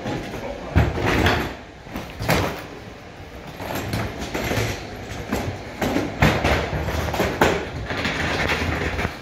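Wheeled plastic waste bins being handled out of a van and rolled over a concrete floor: several hard knocks and thuds of the plastic bins, with the rattling rumble of their wheels through the second half.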